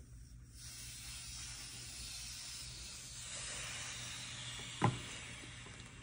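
Air hissing steadily into a vacuum jar as the vacuum is released through the gauge-set valve, letting atmospheric pressure back in around the evacuated marshmallow. The hiss starts about half a second in, and a brief sharp sound cuts across it near the end.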